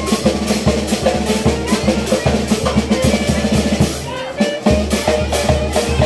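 Chirimía band playing live: a bass drum and cymbal keep a fast, steady beat under a wind-instrument melody. The drum drops out briefly about four and a half seconds in.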